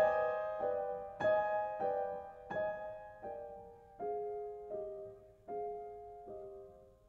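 Background piano music: a slow line of single notes, each struck and left to ring away, coming a little further apart and growing softer.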